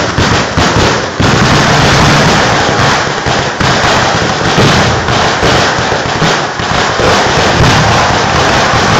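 Aerial fireworks display: a few separate bangs in the first second, then a loud, dense barrage of rapid overlapping explosions and crackle.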